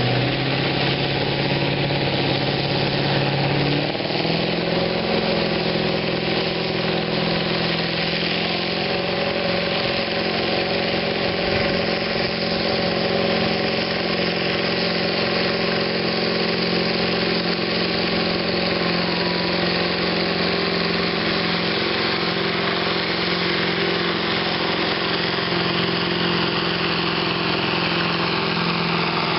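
Massey Ferguson 1150's Perkins V8 diesel running hard under full load as it pulls a weight-transfer sled. The engine pitch steps up about four seconds in and then holds steady.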